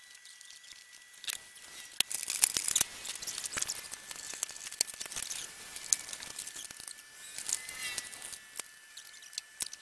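Scattered clicks, knocks and rustling from parts and cardboard packaging being handled on a pickup truck's lowered tailgate.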